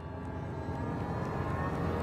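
Intro sound effect: a dense, droning riser that swells steadily louder, building into the intro music.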